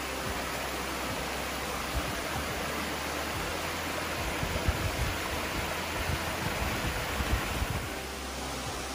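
Creek water spilling over small stepped rock cascades: a steady rush of water that drops a little in level near the end.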